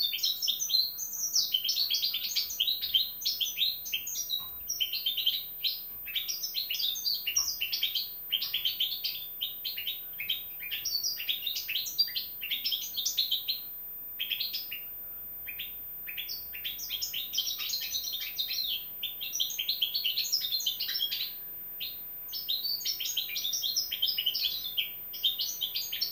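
Young hybrid finch, four months old, singing a long run of fast, twittering warbles and chirps, with a couple of short pauses along the way.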